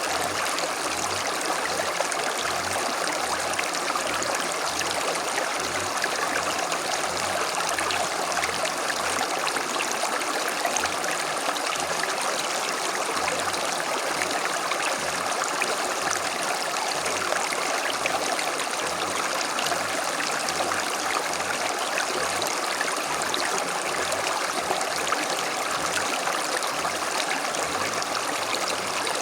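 A creek flowing: a steady, continuous rush of running water.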